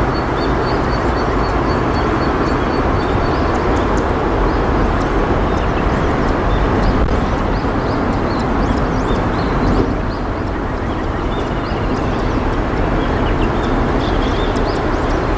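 Steady rush of river water flowing over rocks, with scattered short high chirps above it. A rapid, even string of high ticks runs through the first few seconds.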